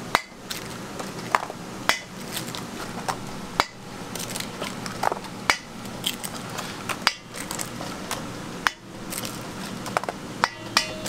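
Eggs cracked one after another on a stainless steel mixing bowl: a sharp crack roughly every one and a half to two seconds, over a steady low hum.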